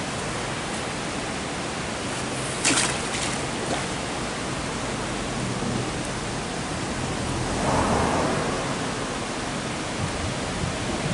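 Steady rushing of water pouring over a weir. A single sharp knock sounds about three seconds in, and a brief rush swells up around eight seconds.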